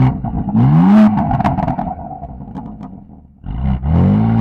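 BMW M4 F82 Competition's twin-turbo straight-six exhaust revved hard twice. The first rev climbs to a peak about a second in and falls back, with crackles and pops from the exhaust as the revs drop. The second rev climbs sharply from about three and a half seconds in.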